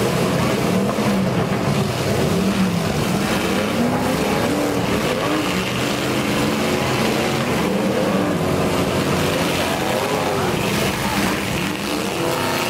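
Engines of several antique demolition derby cars revving together, their pitch repeatedly rising and falling as they drive and ram each other in the arena.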